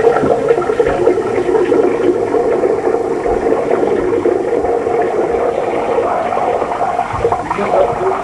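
Water running steadily, with no break.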